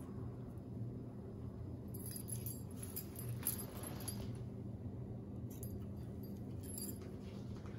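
Metal scissors being handled: light metallic jingling and clinking in two short spells, over a steady low hum.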